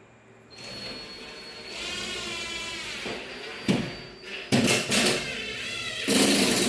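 Cordless drill running as screws are driven into the steel frame of a bathroom-pod wall, its motor pitch wavering. Several sharp knocks come in the second half, and a loud rattling noise near the end.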